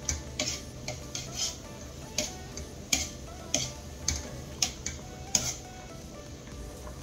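Wire strainer clinking against the side of a stainless-steel pot while stirring fresh noodles in boiling water: irregular light metallic ticks, about two a second, over quiet background music.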